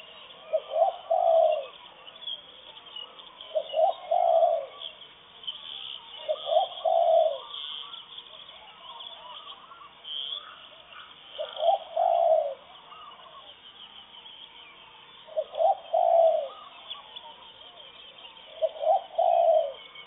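A dove cooing: a short phrase of two quick notes running into a longer coo, repeated six times about every three seconds. Small birds chirp faintly in the background.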